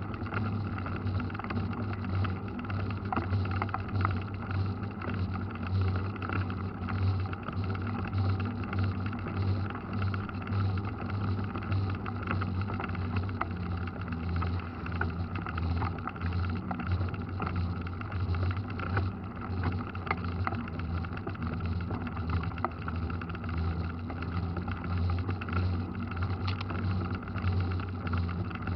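Steady low rumble of a moving mountain bike on a wet paved road, tyre and wind noise on a bike-mounted camera, with small scattered rattles and clicks.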